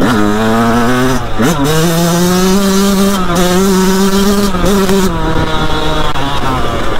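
A 2001 Yamaha YZ125's single-cylinder two-stroke engine running under throttle as the bike is ridden. Its pitch dips sharply and climbs back about a second and a half in, then holds fairly steady at a higher pitch before easing off near the end.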